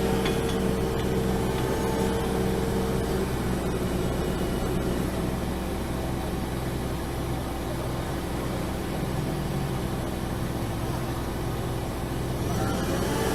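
Heavy machine's diesel engine running steadily at an even pitch.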